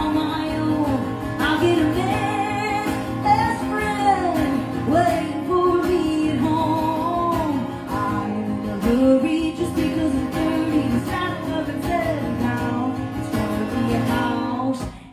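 A woman singing live into a microphone while playing an acoustic guitar.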